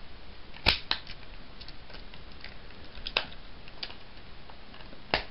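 Plastic parts of a Transformers Animated Lugnut action figure clicking and knocking as they are handled and pushed into place during its transformation to bomber mode. The sharpest click comes under a second in, with a few more scattered through, the last near the end.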